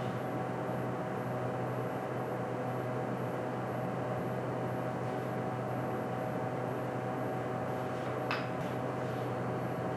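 Steady electric hum of running workshop equipment: a constant drone with a few held low tones under an even hiss. One light click about eight seconds in.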